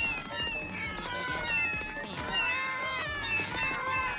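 Many cats meowing at once, overlapping calls rising and falling in pitch, over background music.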